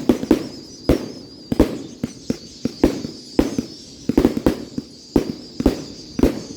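Fireworks going off in a rapid, uneven series of sharp bangs, about two a second, each with a short trailing rumble, over a faint wavering high whistle.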